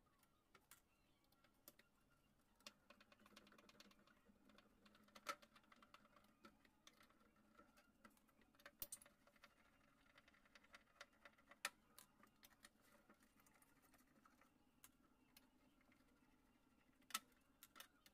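Near silence with faint, scattered small clicks and taps of hand-work on the amplifier's casing, a few sharper ones standing out, over a faint steady hum.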